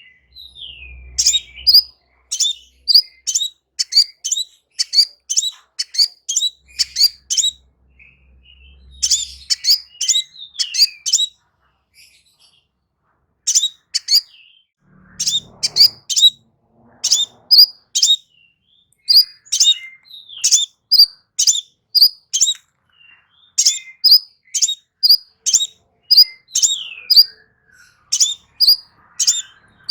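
Crimson sunbird singing: a rapid run of short, sharp, high chirps, several a second, in phrases broken by short pauses.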